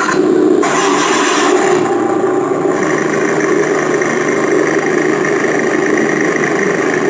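Simulated engine sound played through a vehicle's engine-sound simulator speaker. It runs like an engine at idle, shifting during the first few seconds, then holding steady.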